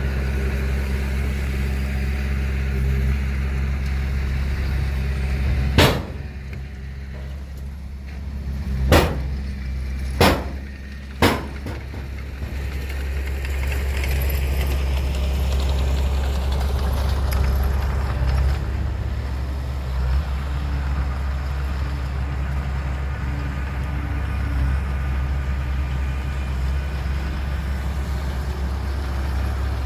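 Heavy truck or earthmover engine running steadily at low revs, with four sharp knocks between about six and eleven seconds in.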